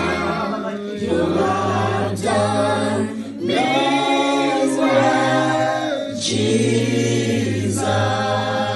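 A man and a woman singing a gospel worship song together into microphones, in long held phrases with short breaks between them.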